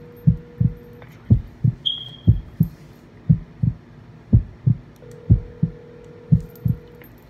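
Heartbeat sound effect, a low double thump about once a second. Under it, a phone's ringback tone comes over the speakerphone twice, each ring about two seconds long, as an outgoing call rings unanswered.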